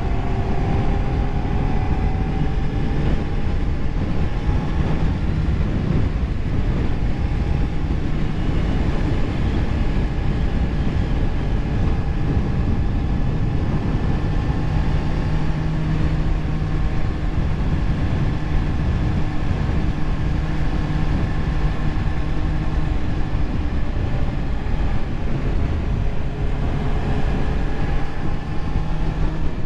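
Sport motorcycle engine running at a steady cruise, its pitch drifting gently up and down with the throttle, under a constant rush of wind on the microphone.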